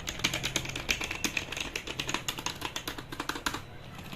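Rapid typing on a Zebronics ZEB-K20 wired keyboard, fast key clicks that thin out to a few scattered taps about three and a half seconds in.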